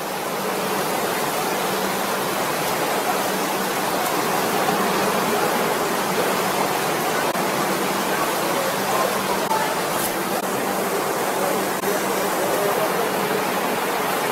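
Steady, even rushing noise like wind or water, with a faint low hum underneath.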